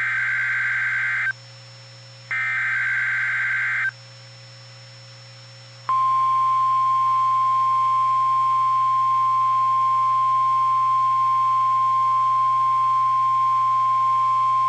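Emergency Alert System tones from a NOAA Weather Radio broadcast: two buzzy bursts of the SAME digital header data, each about a second and a half long, then after a two-second pause the steady 1050 Hz warning alarm tone held for about nine seconds.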